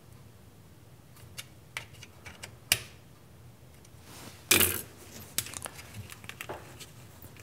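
Hand-tool and handling noises. First a few small sharp clicks as a hex key tightens the screws of a 3D-printed PETG clamp block, then a loud short scraping rustle about halfway through. After that comes a run of small quick clicks as the plastic Loc-Line segmented coolant hose is flexed into position.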